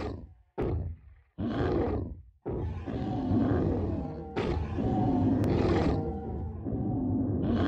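Deep, rough growls of a giant three-headed dog beast. There are three short growls in the first two and a half seconds, then one long, unbroken growl, with music underneath.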